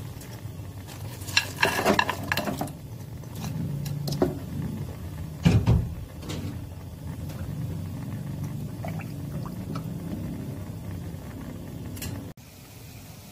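Frozen dumplings dropped into broth in a stainless steel pot: plops, splashes and clinks against the metal in a few clusters over the first six seconds, the loudest about five and a half seconds in. A steady low rumble follows.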